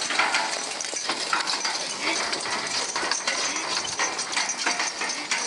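Trace chains and harness hardware on a mule team jingling and clinking, mixed with the rattle of a mule-drawn hay rake's metal mechanism, as the team pulls it through cut hay. A steady run of small metallic clicks.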